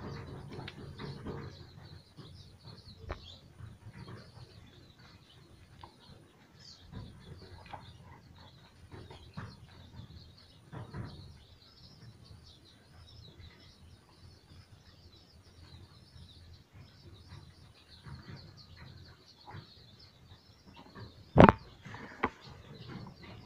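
Chicks peeping continually in small high chirps. Scattered light knocks and handling sounds run through it, and one loud sharp click comes near the end.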